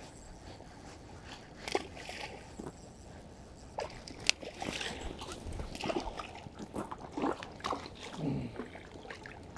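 A hooked trout thrashing and splashing at the water's surface while it is reeled in, a run of short splashes from about four seconds in, with a couple of sharp clicks among them.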